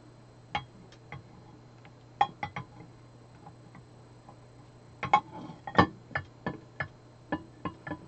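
Ceramic dome of a cat water fountain being set onto and turned on its ceramic basin: scattered clinks and knocks of ceramic on ceramic, a few in the first three seconds and a quicker run of them from about five seconds in, some ringing briefly.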